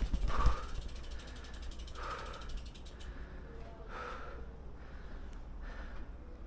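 Heavy breaths about every two seconds from a person pushing a loaded touring bicycle up stairs. For a couple of seconds near the start, the bicycle's rear freewheel ticks quickly as the wheel turns.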